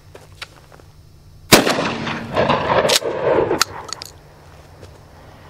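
A Mossberg Maverick 88 12-gauge pump shotgun fires a single 2¾-inch double-aught buckshot shell about a second and a half in, the blast echoing for about two seconds, followed by a few sharp clicks.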